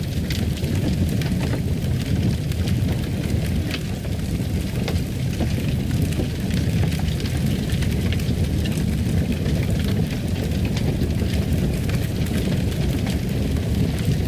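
Wood fire burning in a fireplace: a steady low rumble with many small crackles and pops.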